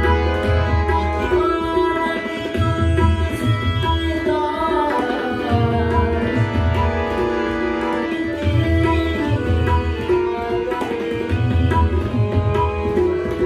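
Tabla playing a rhythmic pattern, the bayan's deep bass strokes pulsing under the dayan's sharper strokes, over the sustained chords of a harmonium. A man's voice sings a devotional bhajan melody at times.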